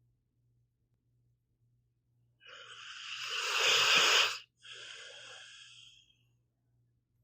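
Pit bull snoring in its sleep: one harsh, wheezy snore swells for about two seconds and breaks off, followed at once by a weaker breath.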